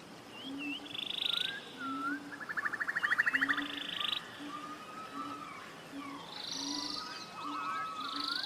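Forest birds calling: phrases of short swooping notes, each ending in a fast rattling trill, several times over. Under them a low note repeats about twice a second.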